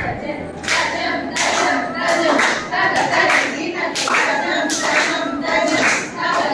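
Hand claps keeping the tala for Kuchipudi jathi dancing, about three strokes a second, over a voice chanting or singing the rhythm.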